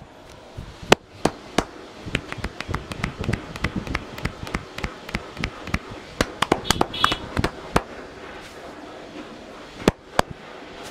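A masseur's hands striking the head and neck in quick, irregular slaps and claps, the hand percussion of an Indian head massage: about thirty sharp strikes, thickest in the middle, with two more near the end.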